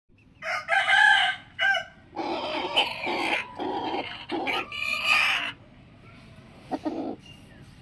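Rooster crowing: a loud short call about half a second in, then a long crow broken into several pulses lasting about three seconds, and a faint short call near the end.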